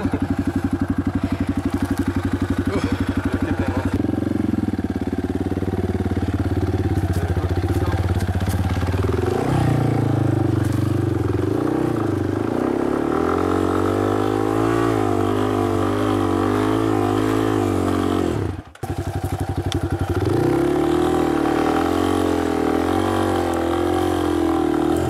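Dirt bike engine running, first at steady low revs, then revving up and down as the throttle is worked. The sound cuts out for a split second about two-thirds of the way through.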